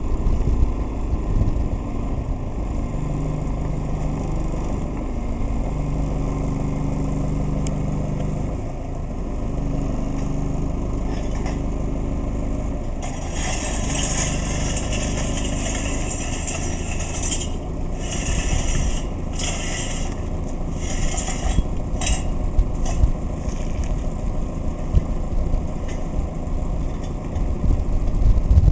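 Engine of a self-propelled hydraulic boat trailer running as it carries a cabin cruiser slowly across the yard, with a steady low rumble, a low hum that comes and goes early on, and several short spells of high hissing around the middle.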